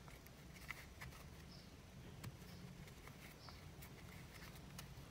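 Faint rustle and soft ticks of a crochet hook pulling yarn through single crochet stitches, with a few light clicks scattered through.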